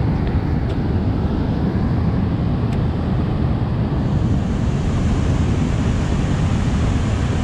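Steady rush of water pouring over a dam spillway and churning in the whitewater below.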